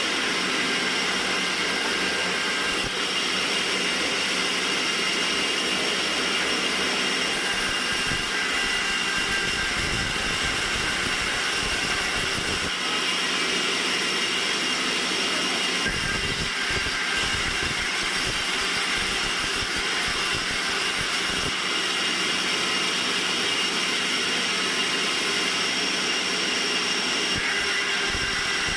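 Band sawmill running steadily, a continuous machine noise with a high whine.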